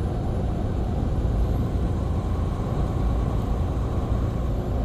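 Steady engine drone and road rumble inside a semi-truck's cab while cruising on the interstate.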